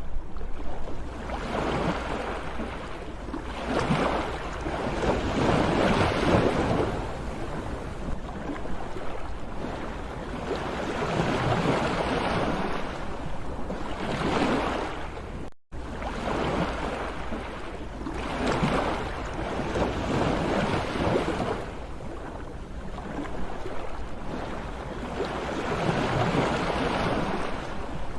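Sea waves breaking and washing on a shore, surging and ebbing every few seconds over a steady low rumble. The sound cuts out for a split second about halfway through.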